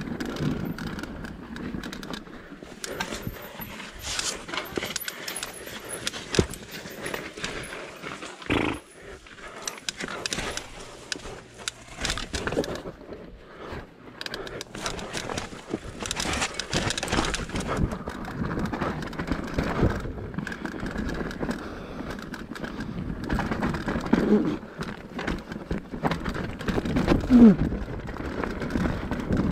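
Mountain bike rattling and clattering down a rough dirt trail, with irregular knocks from the bike, tyres on the ground and rushing air. Two short squeals come near the end, the second the loudest sound.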